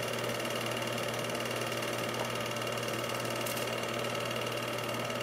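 Steady mechanical whir and hum of an 8mm film projector running, with a brief faint hiss about three and a half seconds in.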